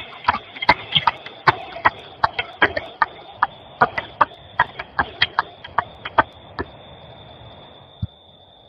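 An audience applauding: irregular individual hand claps over a light wash of clapping, thinning out and dying away after about six seconds. A faint steady high-pitched whine from the recording runs underneath.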